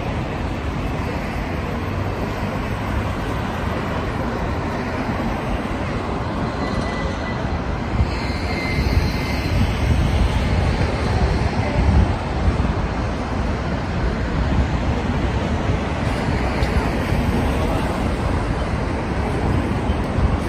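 Steady rumbling vehicle noise of a city street, with faint high-pitched tones about a third of the way through.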